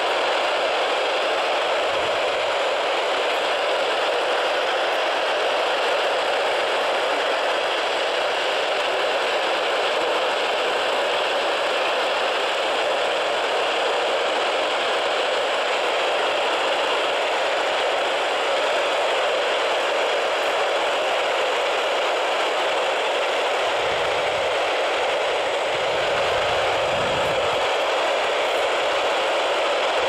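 Steady static hiss from a Midland NOAA weather radio's speaker, tuned to the 162.525 MHz weather channel with no clear station coming through.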